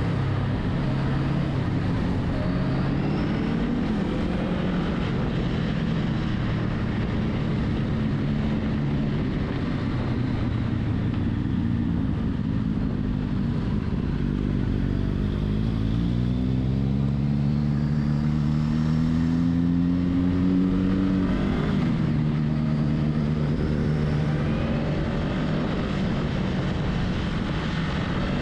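Honda Rebel 500's parallel-twin engine running under way. About halfway through, its pitch climbs steadily for around five seconds as it revs up, then drops back and settles, as at a gear change.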